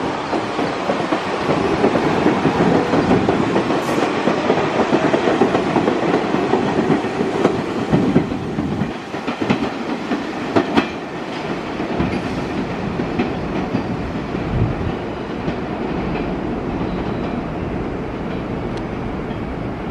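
R62A subway train running on steel rails, its wheels clattering over the rail joints with scattered sharp clicks. It is loudest in the first half and eases off after about nine seconds.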